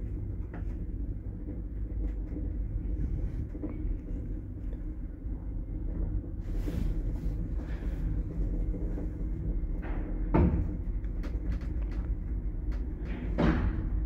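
A 1979 passenger lift travelling in its shaft: a steady low running rumble, with two sharp clacks, about ten seconds in and again near the end.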